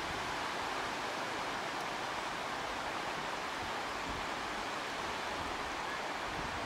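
Steady, even rush of sea surf breaking on a sandy beach, mixed with wind buffeting the microphone.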